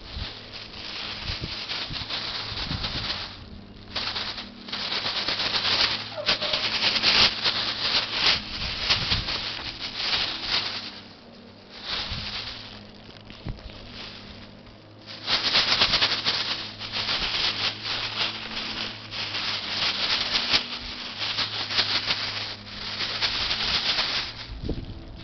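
Thin plastic bag crinkling and rustling as ferrets scrabble in and around it, in bursts with a couple of quieter pauses.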